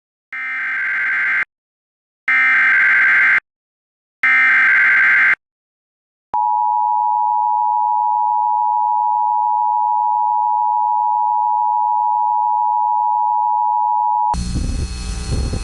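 Emergency Alert System SAME header: three bursts of screechy digital data tones, about a second each, then the steady two-tone EAS attention signal held for about eight seconds, which opens a tornado warning. Near the end the tone gives way to a burst of dense broadcast noise.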